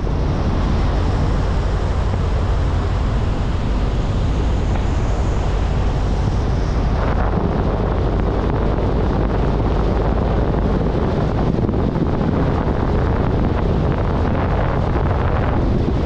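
Wind buffeting the microphone on a moving vehicle, with engine and road noise underneath: a loud, steady, low rushing noise.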